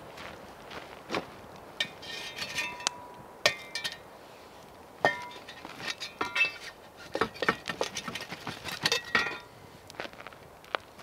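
A steel spade scraping through the ash and coals of a metal fire ring, with a string of sharp metallic knocks and clinks as it strikes the ring and the logs. Some knocks ring briefly. The loudest come around three and a half and five seconds in, and they stop shortly before the end.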